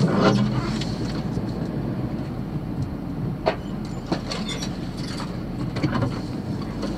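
Vehicle crawling along a rough, overgrown dirt track, heard from inside the cab: a steady rumble of engine and tyres with the body rattling, and a few sharp knocks and scrapes in the second half as branches strike and drag along the sides.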